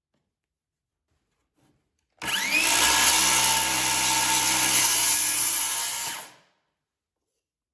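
Porter-Cable 20V cordless circular saw spinning up with a rising whine about two seconds in, then running steadily as it is pushed through a small piece of wood on a Kreg Cross-Cut Station, stopping about four seconds later.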